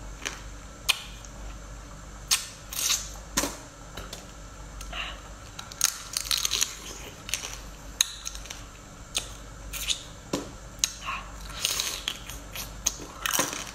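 Close-up seafood eating: shells cracking and flesh tearing, with chewing, heard as irregular crunches and sharp clicks.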